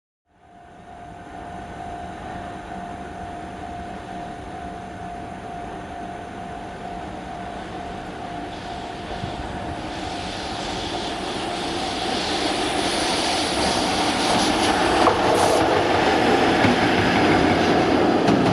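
JR Freight EF66 electric locomotive running light, approaching and growing steadily louder over the second half. A steady tone runs through the first half.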